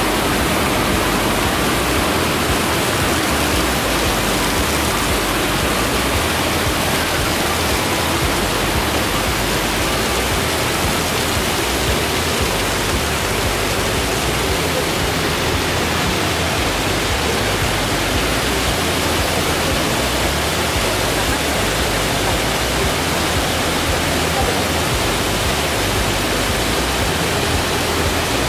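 Hot spring water from the yubatake's wooden channels cascading over rocks into a steaming pool: a steady, unbroken rush of falling water.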